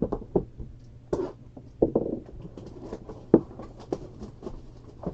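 Trading-card box packaging being handled: irregular crinkles, rustles and small clicks, with one sharper click about three and a half seconds in.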